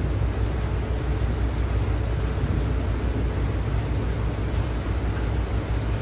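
Steady rain falling on wet asphalt and a parked car, an even hiss with a steady deep rumble underneath and scattered sharp drop ticks.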